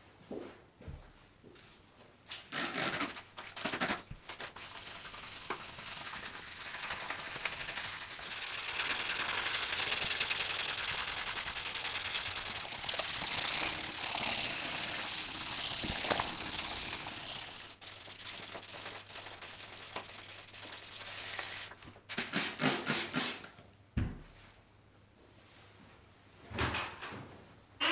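Workshop bench work: clicks and knocks of metal parts being handled, with a steady hiss for about ten seconds in the middle.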